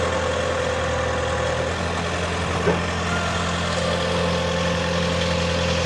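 Engine of the vehicle towing the boat trailer, running steadily, with a faint steady whine that comes and goes.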